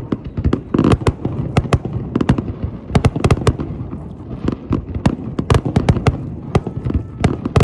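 Fireworks going off in a rapid, irregular string of sharp bangs and crackles, several a second.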